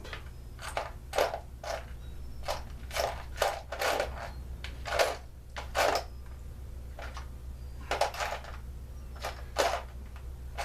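Irregular clicks and knocks of small parts and tools being handled while a leaf blower is worked on, about fifteen over the stretch, with a steady low hum underneath.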